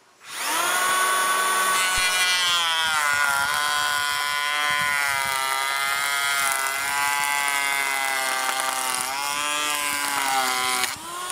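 POPOMAN TECCPO 18 V cordless twin-blade planer spinning up and planing a wooden beam at its 1.5 mm maximum cut depth: a steady high motor whine whose pitch sags as the blades bite. It winds down near the end with a falling tone.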